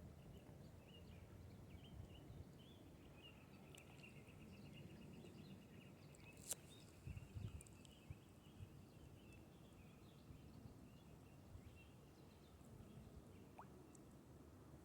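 Near silence: a quiet outdoor background with faint bird chirps, including one short trill, over a low steady rush of the nearby river. A sharp click comes about six seconds in, followed by a few soft bumps.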